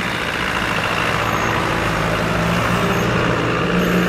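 Off-road vehicle engine running steadily under load, getting a little louder and higher in pitch near the end.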